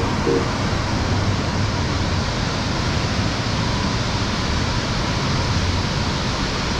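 Steady rush of falling water from a waterfall, a constant even hiss with no let-up.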